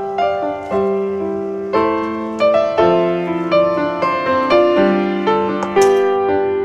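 Background piano music: notes and chords struck about once or twice a second, each ringing and fading.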